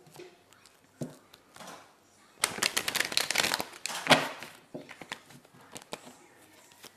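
Tarot cards being shuffled and handled: a soft tap about a second in, then a quick run of crisp riffling ticks for nearly two seconds, followed by a few scattered card clicks.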